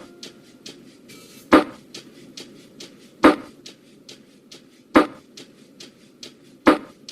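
Lo-fi beat with the piano dropped out, leaving only its percussion: a sharp snare-like click about every second and a half to two seconds, with softer ticks between, over a faint low hiss.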